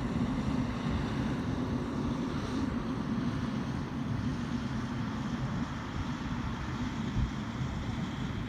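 Airbus A220-300's Pratt & Whitney PW1500G geared turbofan engines running with a steady jet noise, mixed with wind rumbling on the microphone.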